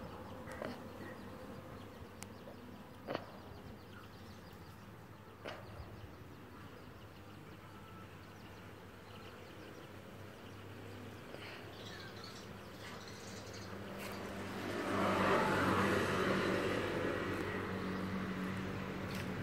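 Quiet outdoor ambience with a few faint clicks, then a motor vehicle's engine grows louder about fifteen seconds in and keeps running.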